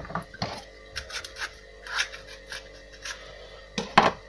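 A bell pepper being handled and cleaned of its core and seeds: scattered scraping and rubbing, with a sharp knock about four seconds in.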